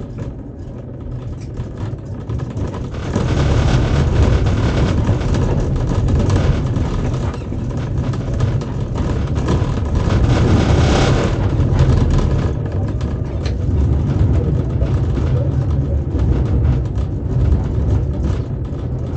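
Tatra T3 tram running along the track, heard from the driver's cab: a steady low rumble of motors and wheels on rail. It grows louder and rougher about three seconds in and eases off again after about twelve seconds, with scattered clicks later on.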